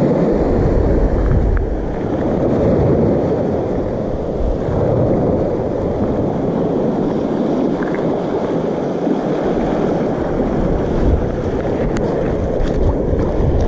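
Wind buffeting the microphone, with small waves washing onto a sandy beach underneath.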